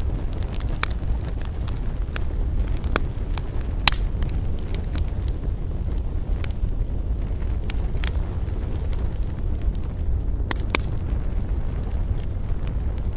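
Wood campfire burning: sharp crackles and pops of the burning wood, scattered irregularly over a steady low rumble. The loudest pop comes about four seconds in, and two strong ones close together later on.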